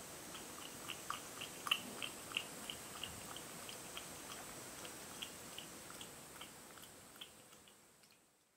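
Domestic cat lapping milk from a glass: small wet tongue clicks, about three a second, fading out near the end.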